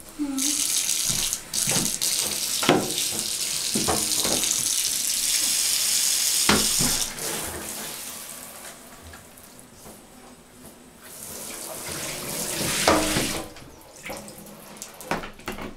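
Shower water running in a steady hiss, most likely rinsing dirt out of the shower after the dog's wash. It fades out about halfway through and runs again briefly near the end, with a few knocks in between.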